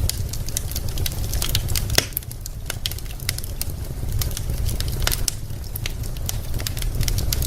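Wood fire crackling: burning logs giving irregular sharp pops and snaps, several a second, over a steady low rumble of the flames. One louder pop comes about two seconds in.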